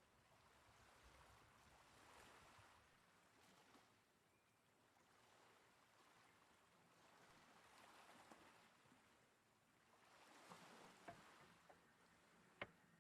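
Near silence: a faint outdoor hiss that swells and fades every couple of seconds, with a few soft clicks near the end and one sharper click shortly before it ends.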